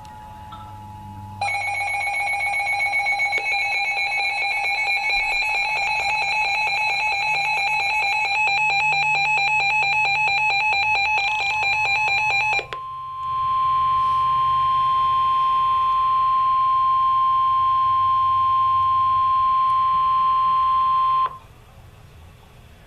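Emergency Alert System warning tones: harsh, rapidly chattering digital header tones for about eleven seconds, then a single steady alert tone for about eight seconds that cuts off abruptly. These are the data burst and attention signal that open a severe thunderstorm warning broadcast.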